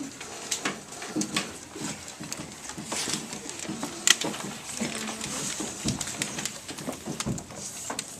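Classroom room sound: children's voices in the background with many scattered clicks and taps from work at the desks, one sharper knock about four seconds in.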